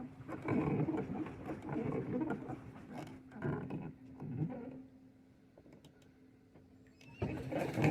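Paddle boat churning and splashing water in uneven pulses as it is pedalled, easing off for a couple of seconds and picking up again near the end.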